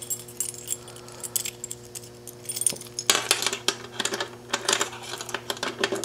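A ring of keys jangling as a key is worked into the lock of a diamond-plate aluminium lockbox, with small metal clicks and clinks, busier in the second half. A faint steady hum lies underneath.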